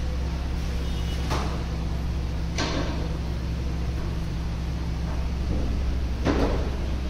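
Wrench work on the Maruti Alto 800's gearbox oil plug, loosened slightly to let out a little gear oil and check its level and quality: three short scraping knocks, about a second in, again over a second later, and the loudest near the end, over a steady low hum.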